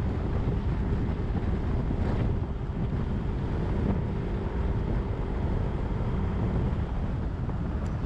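Wind buffeting the microphone over the steady running of a 2022 Yamaha Zuma 125 scooter's single-cylinder engine and tyres, cruising at an even speed.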